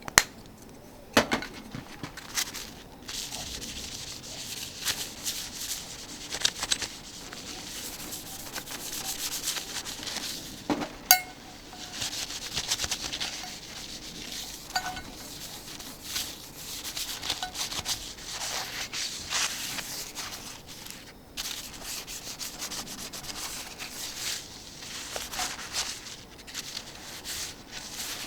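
Repeated rubbing and wiping across a thick steel griddle plate, as oil is worked over its surface for seasoning, with a few sharp metallic knocks; the loudest is a ringing clink about eleven seconds in.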